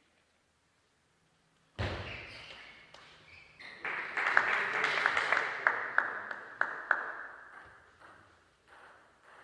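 Table tennis rally in a reverberant sports hall: the celluloid ball clicks sharply off the bats and table about twice a second, echoing, for a few seconds in the middle, then fades out. This follows a sudden thump about two seconds in, after near silence.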